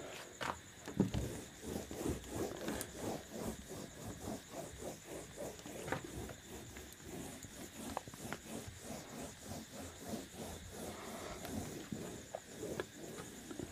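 Whiteboard eraser wiping a whiteboard clean in quick, even back-and-forth strokes, about two to three a second, a faint rubbing.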